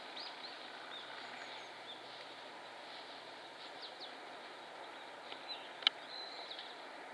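Oriental greenfinches giving short, scattered high chirping calls over a steady background hiss, with a single sharp click about six seconds in.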